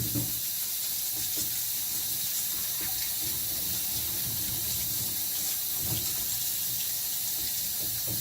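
Bath water running steadily, rinsing the first shampoo out of a puppy's coat.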